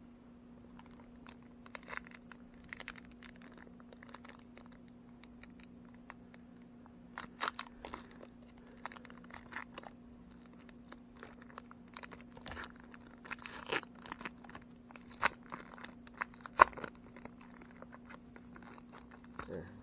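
A 2019 Donruss baseball card pack wrapper crinkling and tearing as it is pulled open by hand, in irregular crackles that grow denser and louder through the second half, over a faint steady hum.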